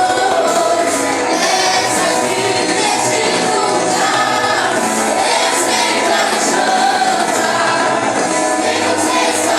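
Live worship music with a group of voices singing over the band, steady and loud throughout.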